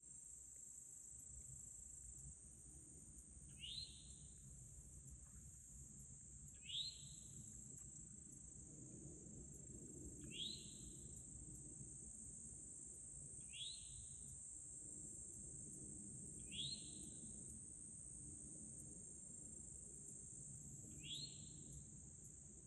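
Steady high-pitched drone of insects such as crickets. A short, rising chirp sounds every three to four seconds and stands out as the loudest sound.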